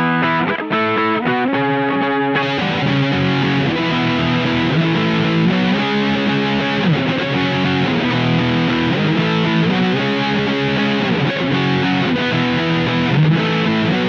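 Electric guitar riff through an Electro-Harmonix Nano Big Muff Pi fuzz pedal. The first couple of seconds are cleaner-edged, then about two and a half seconds in the fuzz is switched on and the tone turns thick and saturated, with string bends.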